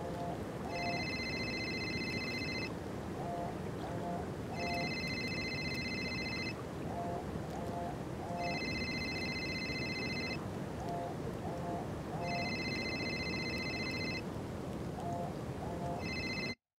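An old mobile phone ringing inside a sealed plastic bag on the sea: an electronic ring about two seconds long, repeating about every four seconds, over steady low background noise. Four full rings, then the sound cuts off suddenly in the middle of a fifth near the end.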